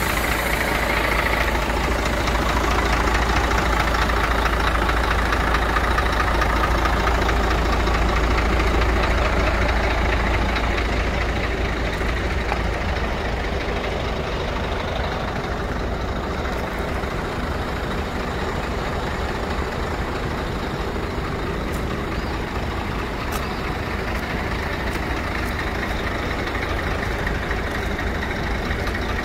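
Scania 114 truck's 11-litre inline-six diesel idling steadily, growing a little quieter after about ten seconds.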